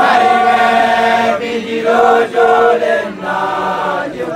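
A group of voices chanting a song together in long held notes, phrase after phrase, with short breaks between phrases: makoloane, Basotho initiates, singing.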